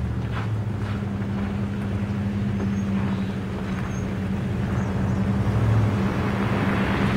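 2007 Dodge Ram's 5.9-litre Cummins diesel idling steadily through its 7-inch exhaust stacks just after a cold start at −14 degrees; it gets a little louder around five or six seconds in.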